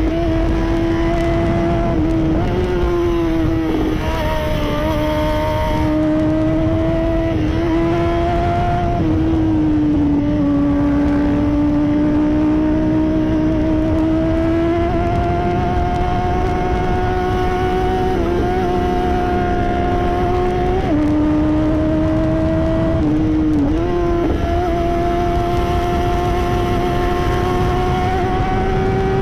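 Honda CBR600RR's inline-four engine running at high revs under way, its pitch drifting slowly with the throttle and dipping briefly several times, over steady wind rush.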